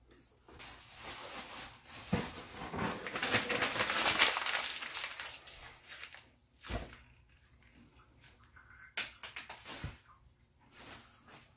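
Rustling and crinkling of packing material in a cardboard shipping box, loudest around the middle, then a few short knocks.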